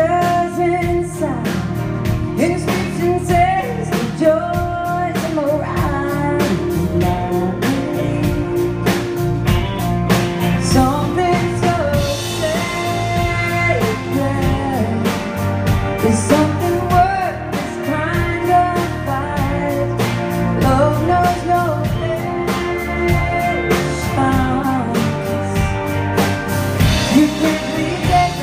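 Live country band: a woman singing with electric guitar and a drum kit keeping a steady beat.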